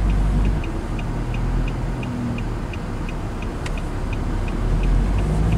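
Engine and road noise inside a moving van's cabin, with the turn-signal indicator ticking steadily, about three ticks a second.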